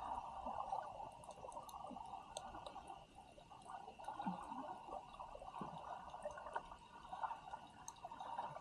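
Muffled gurgling and sloshing of seawater at the camera's microphone, with faint scattered clicks.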